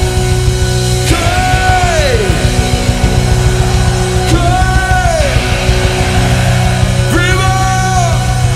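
Loud rock music soundtrack. A sliding note that rises and then falls comes three times, about three seconds apart, over sustained chords.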